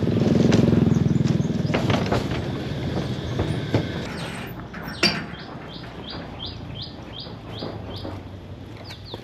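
A motor vehicle's engine running close by and fading away over the first few seconds. Then a bird calls a rapid, evenly spaced series of about ten short high chirps, roughly three a second.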